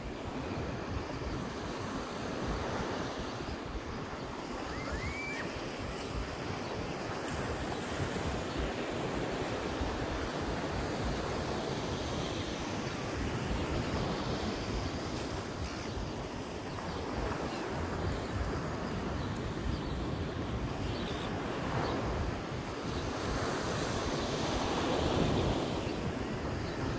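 Ocean surf washing onto a sandy beach, a steady rushing that swells louder in slow surges near the end, with wind buffeting the microphone.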